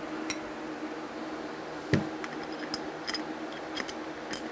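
Small steel transmission synchronizer parts clicking and clinking together as a ring is pushed back onto the synchronizer assembly by hand. There is a dull knock about two seconds in, then a run of sharp metallic clicks, over a steady low hum.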